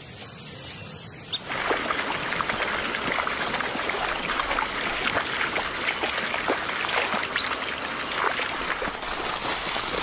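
A steady high insect whine, then about a second and a half in, lions start lapping water: a dense run of quick, wet, overlapping laps and splashes from several animals drinking.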